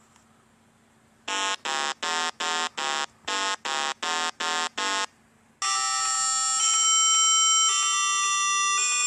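Synthesized cartoon sound effects: about ten short electronic beeps at a steady pace, then a held electronic chord of several tones that shifts pitch twice.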